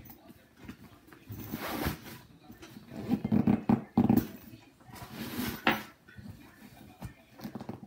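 Nylon duffel bag being wrestled shut: fabric rustling and the zipper tugged in short scrapes and clicks against an overstuffed load. A few louder, rough grunts of effort come about three to four seconds in.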